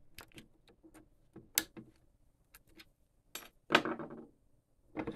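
Small metal parts of a floor jack clicking and clinking as a part is popped out by hand: scattered light ticks, with a louder clattering knock about three and a half seconds in and another near the end.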